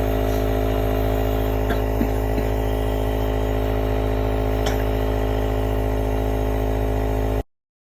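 Compressor nebulizer running with a steady, loud hum, with a few faint clicks over it. The hum cuts off suddenly near the end.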